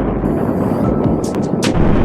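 Background music with short, crisp high ticks, over a steady rush of wind and road noise.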